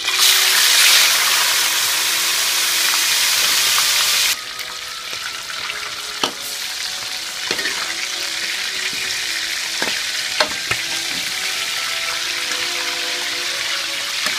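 Chicken pieces going into hot oil in a wok: a loud hiss as they hit the oil, settling after about four seconds into a steady deep-frying sizzle. A metal utensil clinks against the wok a few times.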